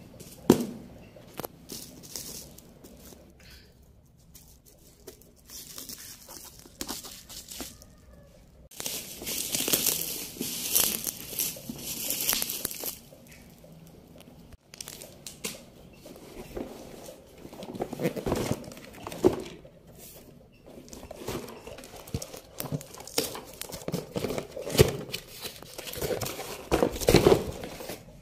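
Plastic bubble wrap crinkling and tearing as it is pulled off a cardboard box, with a dense stretch of rustling about a third of the way in and heavier crinkles and knocks of the box in the second half.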